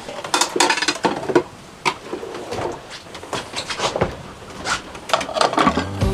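Kitchenware clattering: knocks and clinks as a frying pan is handled on a gas stove and a Calphalon glass lid is lifted and set down onto the pan, the last knocks coming near the end.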